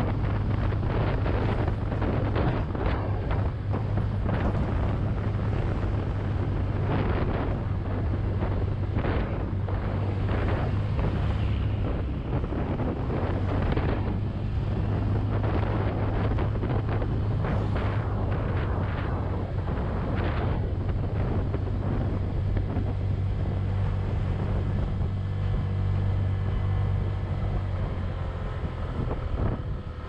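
Honda Click 125i scooter's single-cylinder engine running steadily as it climbs a steep road with a passenger aboard, under heavy wind buffeting on the microphone. The wind eases a little near the end and the engine hum comes through more clearly.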